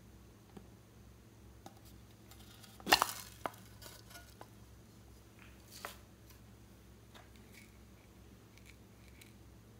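Slime being mixed and handled in a container: a quick cluster of sharp clicks and pops about three seconds in, another click just after and one near six seconds, with faint scattered ticks over a low steady hum.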